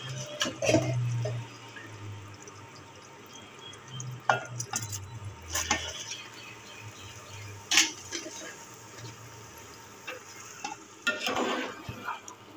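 Boiled rice tipped and spooned from a bowl into an aluminium pot of simmering sugar syrup, with soft bubbling and a few scattered clinks and knocks of spoon and bowl on metal. A spoon stirs the rice in the pot near the end.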